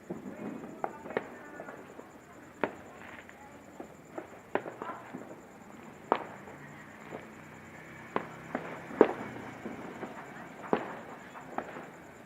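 Firecrackers going off one after another: about fifteen sharp bangs at irregular intervals, some close and loud, others faint. The loudest comes about three quarters of the way through.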